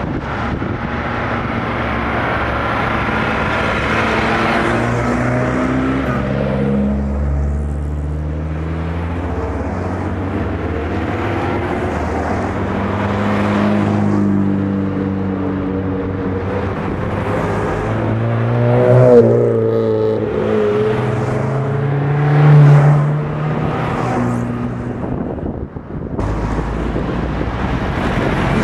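A line of old Lada (Zhiguli) cars driving past one after another, their engines running and revving as each goes by. Two passes in the second half are louder.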